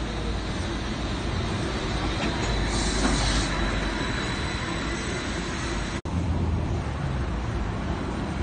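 Neoplan electric trolleybuses running past at street level: a continuous hum of traction motor and tyres, a thin steady high whine, and a short hiss about three seconds in. The sound drops out for an instant about six seconds in, then a second trolleybus passes close with a louder low rumble.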